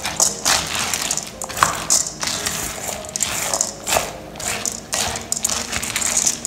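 A spoon stirring and scraping soaked sticky rice and boiled dried corn kernels around a stainless steel bowl, the grains rattling against the metal in repeated strokes, about two a second.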